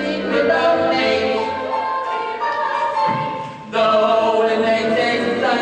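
A chorus of voices singing a musical number with accompaniment. The sound drops away briefly a little past halfway, then the singing comes back in.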